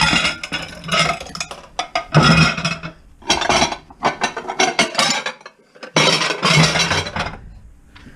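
Metal pots and pans clattering and clinking together as they are handled and moved about, in bursts of knocks with a short pause about five seconds in.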